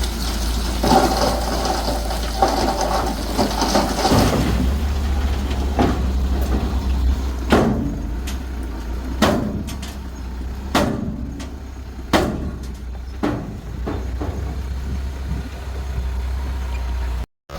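Diesel engine of earthmoving machinery running steadily, with a series of sharp metallic clanks roughly every second and a half. The sound cuts out for a moment near the end.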